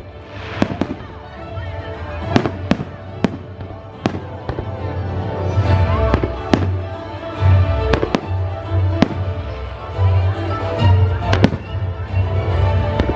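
Fireworks going off in a rapid string of sharp bangs and crackles over a music soundtrack with a heavy low beat. The bangs and music grow louder about halfway through.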